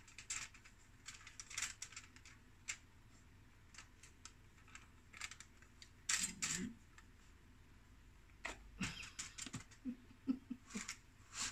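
Scattered faint clicks and taps from hands working at a table: fingers on plates, dusting cornstarch and folding wonton wrappers. A brief voice sound comes about six seconds in.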